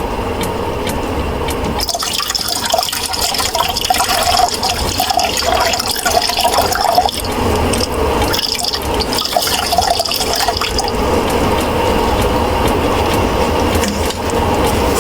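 Liquid being poured and splashing for several seconds, over a steady low hum.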